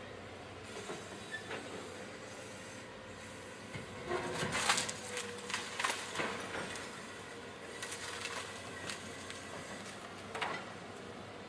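Heavy machinery working, with irregular metallic clanks and knocks over a steady running noise, loudest about four to six seconds in.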